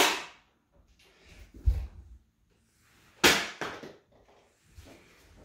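Toy Nerf blaster being fired and handled: a sharp clack right at the start and another about three seconds in, with a dull low thump between them.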